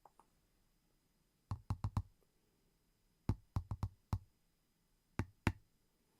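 Sharp, close clicks in three quick clusters: about four, then five, then two.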